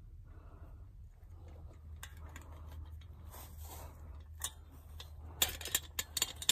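A person crawling over sand: shuffling and scraping of body and clothing, with a quick run of sharp clicks and knocks near the end, over a low steady hum.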